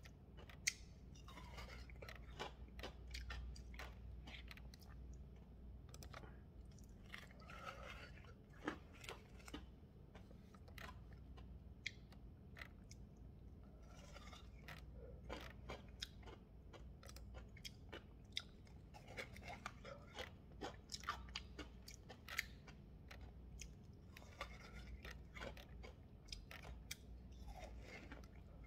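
Faint, close chewing and crunching of a frozen Pollapo ice pop bitten and sucked from its plastic tube: irregular small crunches and clicks of icy slush.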